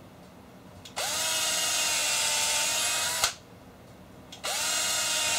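Electric drill boring holes into a wooden board, run twice: each run spins up with a quick rise in pitch, holds a steady whine for a couple of seconds, then stops with a click.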